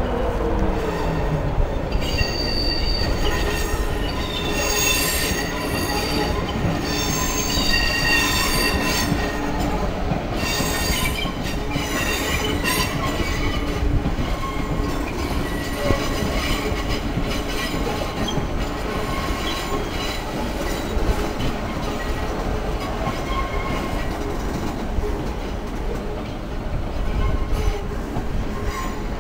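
First Capital Connect electric multiple unit running slowly into the station over pointwork, its wheels squealing in high, shifting tones for the first dozen seconds or so, then running on with a steady rumble of wheels on rail.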